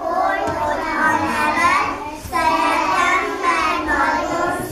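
A group of young children singing a song together, with a short break between phrases about two seconds in.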